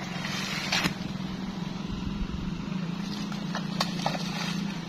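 Water splashing and dripping as a limp, soaked monkey is lifted out of a muddy puddle, mostly in the first second, over a steady low hum, with a couple of sharp clicks.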